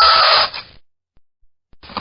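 Fingernails scratching across a chalkboard with a squealing tone. The scratch stops about half a second in, and after about a second of silence another scratch starts near the end.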